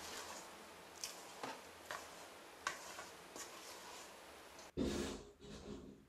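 Faint spatula mixing wet pizza dough in a stainless steel bowl: soft scraping with light taps every half second to a second, then a louder muffled handling sound near the end.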